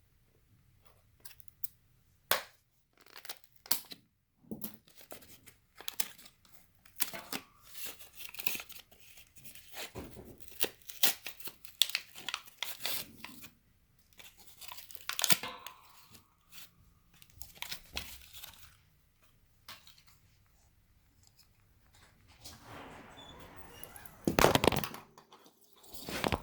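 Toy packaging torn open and crinkled by hand: irregular ripping and crackling of plastic wrappers, in bursts with short pauses, loudest a little before the end.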